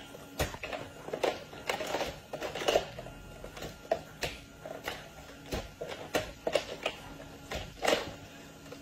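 Plastic cups and dishes clattering and knocking together in irregular, quick clicks as a capuchin monkey handles them in a plastic dish rack at a sink.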